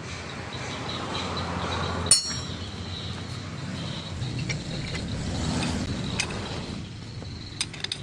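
Metal tools and parts clinking and clanking during differential reassembly, with one sharp ringing metal clank about two seconds in and a few light clicks near the end.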